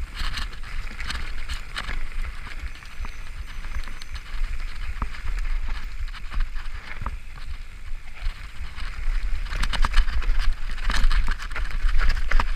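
Mountain bike descending a dirt singletrack at speed: tyres on dirt and leaves, the bike clattering over bumps, and wind rumbling on the microphone. The clatter gets thicker near the end.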